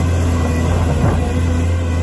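Caterpillar 336D tracked excavator's diesel engine running steadily under digging load, a strong low drone, with a few faint knocks of rock as the bucket works the pile.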